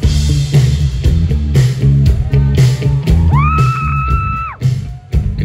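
Live rock band playing over a PA: drums, bass and electric guitars, with a high note that slides up a little past the middle and is held for about a second.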